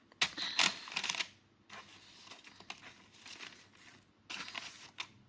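Cardboard box and its packaging being handled, with bursts of rustling, crinkling and clicking in the first second and a half and again near the end.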